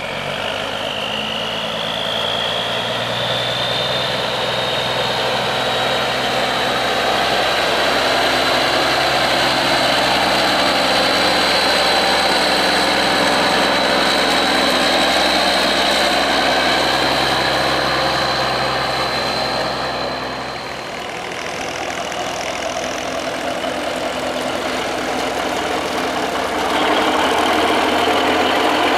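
Antique diesel truck engines running, mostly at a steady idle. A high whine rises over the first few seconds, holds, and cuts out about two-thirds of the way through. The engine sound changes again near the end.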